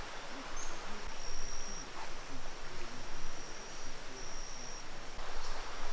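Steady rush of river water flowing at a confluence. A thin, high steady tone, held for about a second at a time, comes and goes three times over it.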